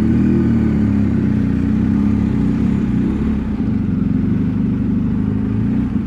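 BMW R1250 GS boxer-twin motorcycle engine running steadily at city speed, its pitch wavering slightly, heard from on board the bike.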